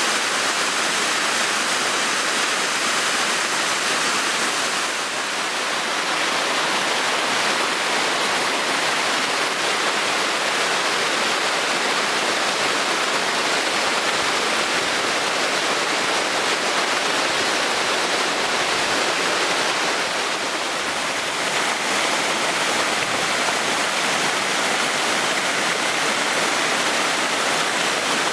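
Waterfall in spate after recent rains, a steady full rush of water falling onto rocks, with the fast rocky stream below churning over boulders.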